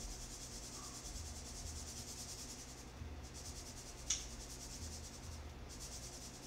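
A spice grinder being twisted to season meatball mixture: a steady gritty hiss with short pauses, and a single sharp click about four seconds in.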